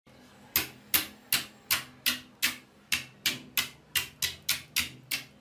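Slime being worked by hand, giving a steady run of about fourteen sharp pops or clicks that come a little faster toward the end.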